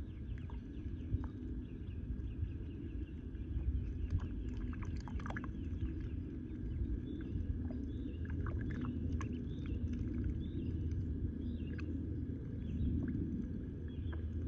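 Ducklings dabbling in shallow muddy water: many quick wet clicks and small splashes of their bills working the mud, busiest a few seconds in, with soft high peeping now and then. A steady low rumble runs underneath.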